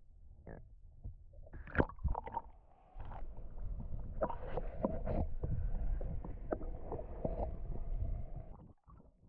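Handling noise in a kayak: a few sharp knocks, then several seconds of clunks and rubbing over a low rumble that stop suddenly near the end.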